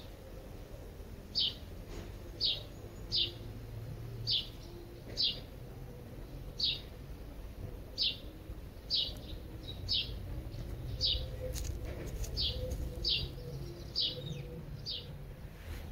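A bird chirping one short, high, falling note over and over, about once a second, over a steady low rumble.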